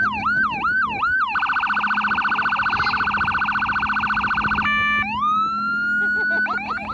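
Fire boat's electronic siren cycling through its tones. It starts on a fast yelp, switches about a second in to a very fast pulsing warble for roughly three seconds, gives a brief steady tone, then rises into a wail that holds before the yelp starts again near the end.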